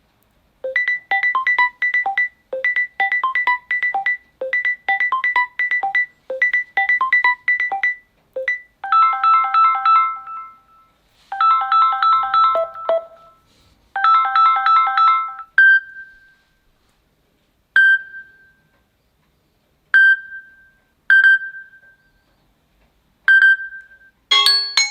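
Samsung Galaxy Note 20 Ultra ringtones playing one after another. First a quick electronic figure repeats about five times, then three longer chime-like chords sound, then single pings come about every two seconds.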